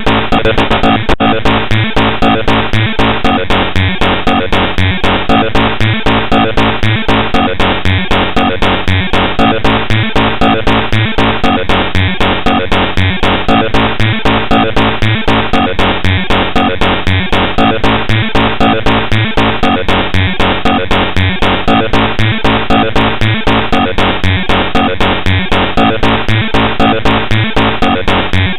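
Loud, harsh electronic music with a fast, even pulse and a lo-fi sound that stops sharply at the upper mids, generated by the JESTER2.exe malware as it runs, in the style of bytebeat audio.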